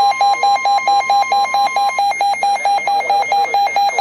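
Emergency alert tones from a weather-radio broadcast: rapid, evenly pulsed beeps, with a steady high tone under them that cuts off about halfway through. The tones announce an incoming severe thunderstorm warning.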